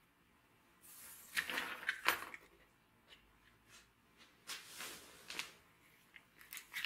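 Scattered handling sounds: short rustles and clicks, the loudest a little over a second and about two seconds in, with more near the middle and the end.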